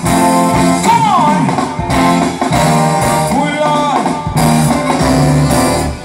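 Live band music led by electric guitar over drums and bass, with sliding guitar notes; the band drops out right at the end.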